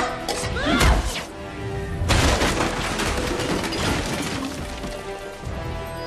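Film fight sound effects over background music: a shout and a hit about a second in, then a long crash of plastic containers and kitchen goods tumbling off storeroom shelves, starting about two seconds in and clattering on for several seconds.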